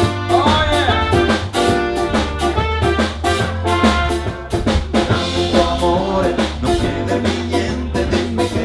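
Swing band playing an upbeat number, with trumpet and saxophone over a steady drum-kit beat.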